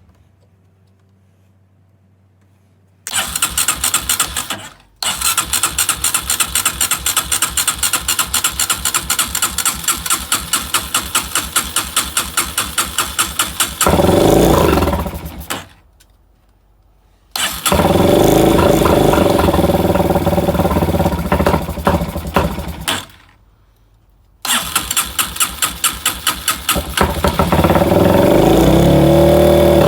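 Dirt bike engine being cranked over and over with a freshly replaced carburetor. After several seconds of steady cranking it catches briefly and dies away. It then fires and runs unevenly for about five seconds before cutting out, and is cranked again until it catches and runs near the end.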